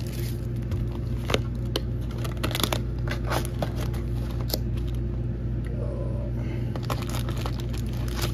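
Plastic shrink-wrap crinkling and tearing as it is pulled off a cardboard booster box, with scattered crackles and light cardboard taps as the box is opened and the packs handled, over a steady low hum.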